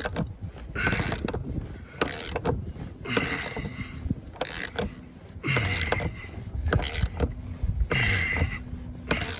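Tire bead breaker being worked in repeated strokes, creaking about once a second, as it forces a tractor tire's bead down past the rim's edge.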